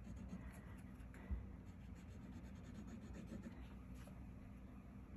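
Faint rubbing and scratching of a liquid glue bottle's tip drawn across cardstock, with one soft low bump just over a second in.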